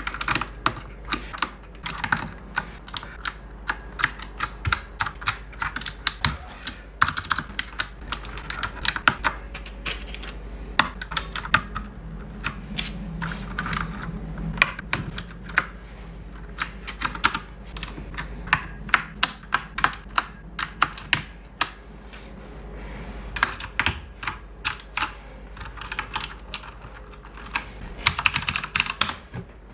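Typing on a mechanical keyboard freshly re-fitted with clicky switches: a fast, irregular run of sharp key clicks, thinning out briefly about two-thirds of the way through.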